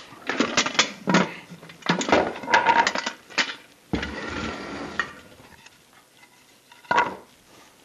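Clanks and knocks of a Central Pneumatic pressure paint tank being tipped and handled, some of them ringing, come in a quick run over the first few seconds. A short scrape follows about four seconds in, and one more knock comes near the end.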